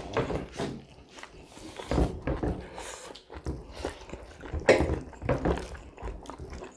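Close-miked eating sounds: chewing and wet mouth noises, with fingers mixing rice and gravy in a metal bowl, in irregular bursts.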